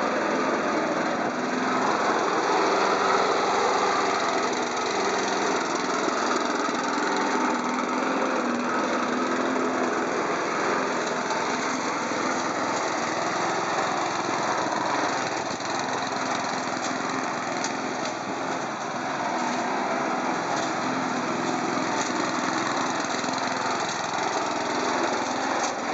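A small engine running steadily, with a slight waver in its hum.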